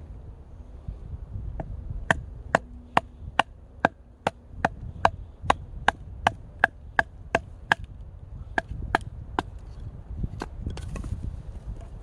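Firewood being split with hand blows: a quick, even run of about twenty sharp wooden knocks, roughly two and a half a second, with a short pause and then a few last strikes.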